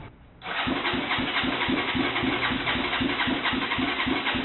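Electric starter cranking a Honda CBX 200's single-cylinder four-stroke engine, beginning about half a second in and turning it over in an even pulse of about five beats a second without it catching. This is the first start attempt on the freshly refitted engine.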